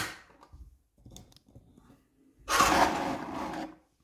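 A sharp plastic click as the model kit's plastic base is set down on a wooden table, a few faint taps, then about a second of loud crunchy plastic rustling from handling the kit's parts or packaging.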